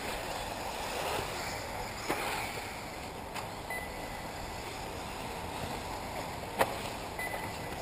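1/8-scale electric RC buggies running on a dirt off-road track: a steady hiss of tyres and motors with two brief faint whines. A sharp knock about six and a half seconds in, typical of a buggy landing a jump or hitting the track border.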